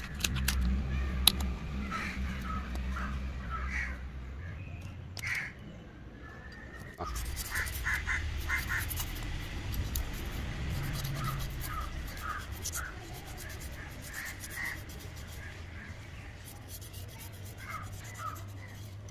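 Crows cawing again and again in short bunches of calls, over the scraping and clicking of a knife scaling a fish. A low rumble runs under the first few seconds and again about halfway through.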